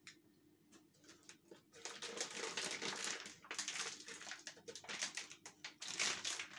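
Plastic packaging of a pack of marinated ribs crinkling and rustling as it is handled, starting about two seconds in.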